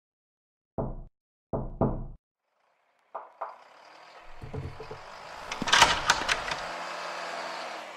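Three knocks on a door, the last two close together, then a couple of clicks. After that a noisy sound swells up, with a burst of sharp clatters about six seconds in, the loudest moment.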